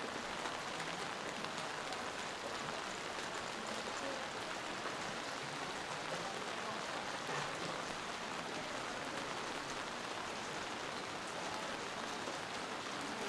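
Steady rain falling on the street, an even hiss with no pauses.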